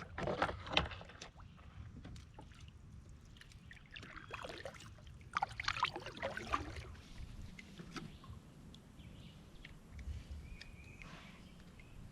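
Water splashing and sloshing in short bursts, about a second in and again from about four to seven seconds in, with close handling knocks and a low rumble.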